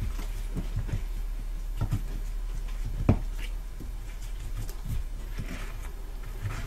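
Scattered rustles and light knocks of exhaust heat wrap being wound by hand around a pipe held in a bench vise, with one sharper knock about three seconds in, over a steady low hum.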